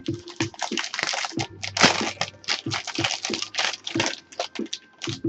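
Packaging being handled and opened: a dense run of crinkling and crackling, heaviest about two seconds in, over background music.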